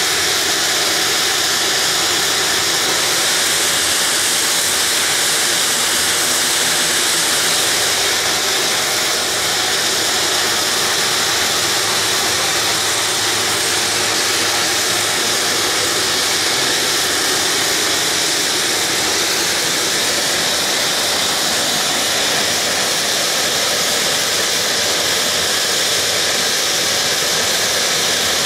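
Cal Fire S-2T air tanker's Garrett TPE331 turboprop engines running steadily at ground idle, a loud, even, high-pitched hiss, kept running while the plane is hot-loaded with fire retardant.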